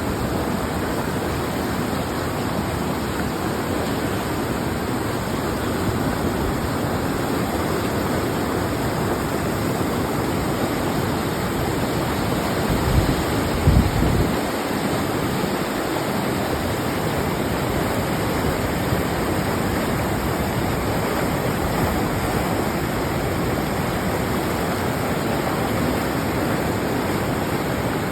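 A fast river rushing, a steady, loud wash of water noise. A few low thumps about halfway through.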